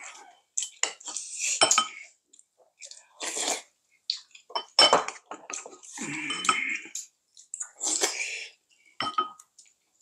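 Spoons and chopsticks clinking against bowls and dishes during a meal: several sharp clinks scattered through, with sipping and chewing sounds between them.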